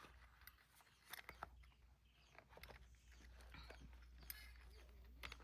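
Near silence: a few faint clicks and rustles over a steady low hum.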